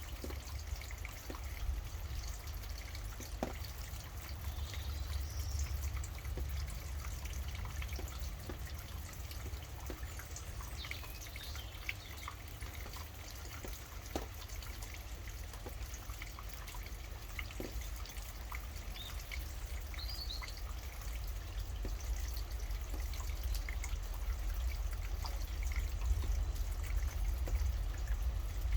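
Rain falling and dripping in scattered, irregular drops over a steady low rumble, with a few faint, brief bird chirps now and then.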